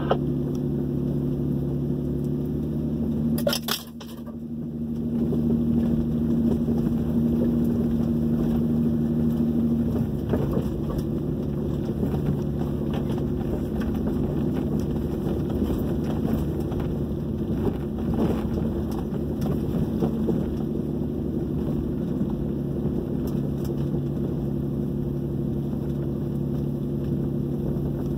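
Truck engine running steadily at low speed on a dirt trail, heard from inside the cab, with a short knock about three and a half seconds in.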